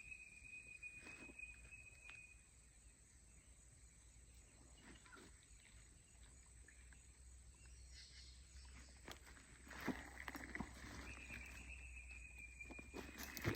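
Quiet outdoor ambience with a faint, high, steady trill from a wild creature at the start and again near the end, each lasting a couple of seconds. A few light clicks and rustles come about ten seconds in.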